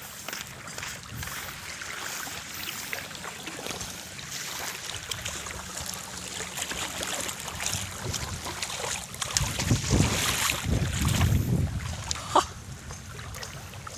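Wind buffeting a phone's microphone, a low rumble that swells strongest in gusts about ten seconds in, over the wash of small waves on a beach.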